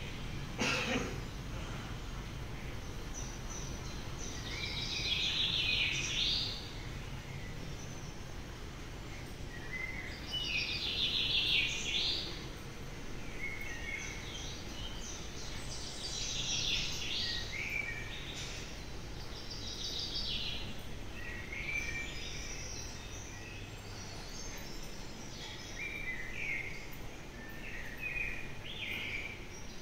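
Birds chirping in short clusters every few seconds over a steady low hum.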